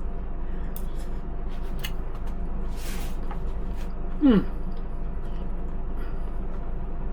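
Light clicks of a fork picking food out of a plastic meal tray, a brief hiss, and about four seconds in a short squeak that falls quickly in pitch, over a steady low hum.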